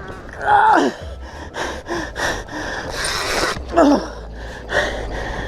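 A man gasping and breathing hard under strain, with two falling groans, one about half a second in and one near four seconds in, as he hauls on a heavy fish.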